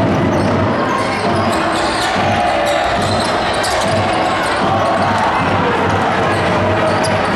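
Basketball game sounds in a sports hall: the ball bouncing on the court against a steady din of crowd voices.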